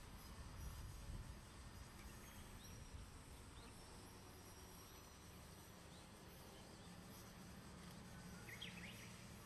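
Very faint low rumble of a distant DE10 diesel-hydraulic locomotive hauling its train, with a short bird chirp near the end.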